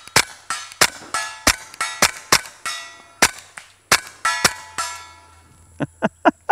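Suppressed KelTec P17 .22 LR pistol firing Winchester Super Suppressed 45-grain subsonic rounds, about eight shots at a steady pace, most followed by the ringing of a steel plate target. After a short pause comes a faster string of shots, about four a second.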